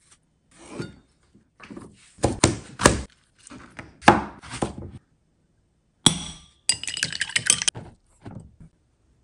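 A kitchen knife chopping vegetables on a plastic cutting board: a run of separate sharp cuts over the first few seconds. Then, from about six seconds in, a quick series of ringing clinks against a glass mixing bowl.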